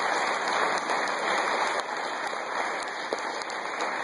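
Audience applauding, a dense patter of many hands clapping that slowly dies down.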